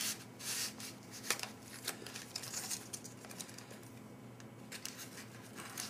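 MRE foil retort pouch crinkling and rustling in short bursts as it is handled, still hot from boiling, ready to be cut open.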